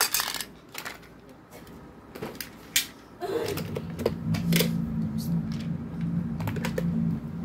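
Hard plastic toy cars and track pieces clicking and clattering as they are handled and set down. A steady low hum comes in about four seconds in.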